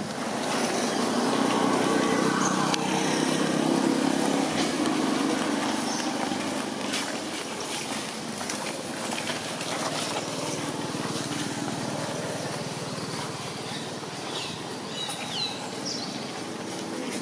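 A motor engine running, loudest in the first few seconds and slowly fading, with a few high chirps near the end.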